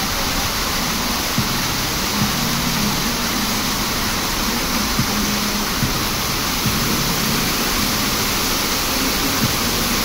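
Rows of fountain water jets spraying up and splashing back into the basin: a steady rushing hiss. A low hum comes and goes beneath it, with a few brief knocks.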